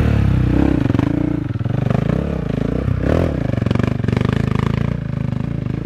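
Adventure motorcycle engine pulling up a steep, loose gravel climb, its note rising and falling with the throttle, with clattering and scraping from stones and the bike.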